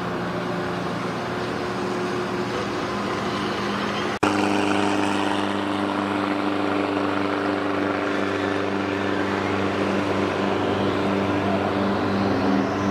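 Steady engine drone from a moored tug and barge. After an abrupt cut about four seconds in, a small river boat's motor runs at speed with a steady pitched hum as the boat skims past throwing spray.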